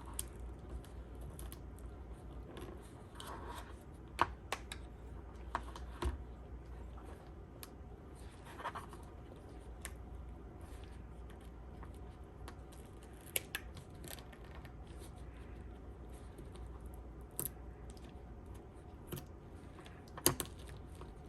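Scattered small clicks and scratches of hands working on Beats headphones: the plastic earcup being handled and the old ear pad and its adhesive tape being pried and peeled off. A faint steady low hum runs underneath.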